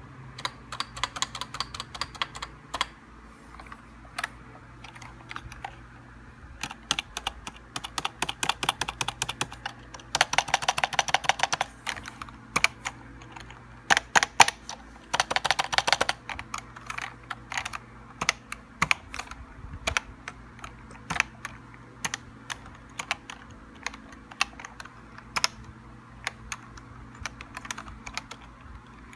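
Keys of a Tt eSports Commander mechanical-feel gaming keyboard being pressed and typed on: scattered single key clicks, with two fast flurries of rapid key presses partway through.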